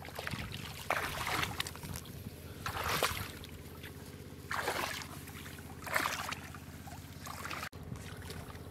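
Shallow muddy paddy water sloshing and squelching as hands dig into the mud, in several short splashes about a second and a half apart.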